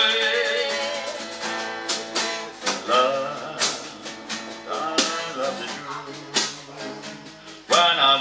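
Acoustic guitar strummed, with sharp hits on a homemade drum kit of buckets and plastic tubes. A sung note with vibrato dies away in the first second, and a voice comes back in near the end.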